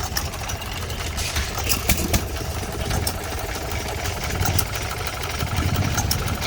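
Hit-and-miss stationary gas engine running at a slow speed: a steady low thrum with scattered sharp clicks.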